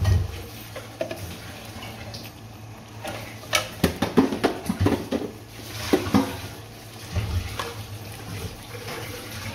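Chana dal boiling in water in a large steel pot, bubbling steadily. A run of sharp clinks and knocks against the pot comes about three and a half to six and a half seconds in.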